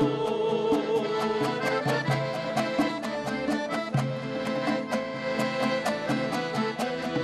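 Traditional Kazakh music: an instrumental melody over a steady beat of light percussion. A wavering held note ends about two seconds in.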